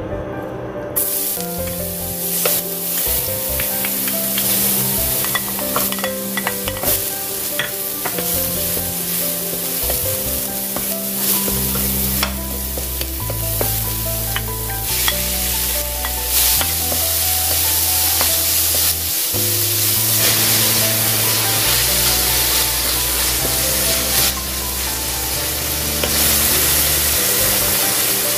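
Minced garlic, ginger, green onion and ground pork sizzling in hot oil in a nonstick wok, stirred with a wooden spoon that scrapes and clicks against the pan; the sizzling starts about a second in. Background music with a bass line plays underneath.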